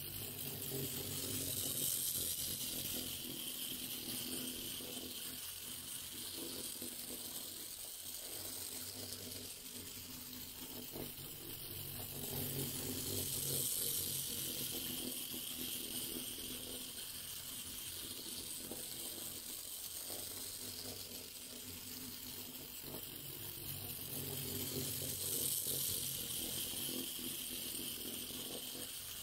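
A small 009-scale live steam locomotive, driven by a single-cylinder steam engine, running round a tight circle of track with a train of log wagons: a steady hiss over a low rumble of wheels on the rails. It swells about every twelve seconds as the train comes round past.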